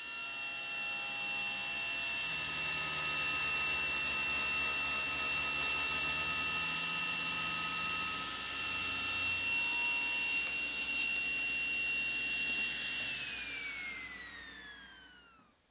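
Table saw running with a steady high whine while a mahogany leg is fed through the blade on a tapering jig to cut a taper. About thirteen seconds in, the pitch falls steadily and fades as the saw is switched off and the blade spins down.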